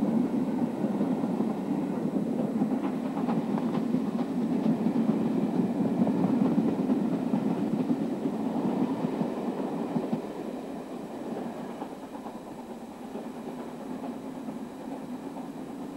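Steam-hauled train running along the track, with wheel clicks over the rail joints; the sound drops to a quieter steady rumble about ten to twelve seconds in.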